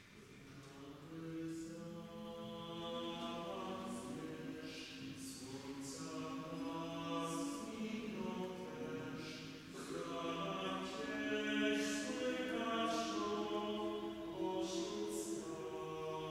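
A chamber choir singing a cappella in a church, several voice parts in harmony. It begins from silence and grows louder over the first couple of seconds.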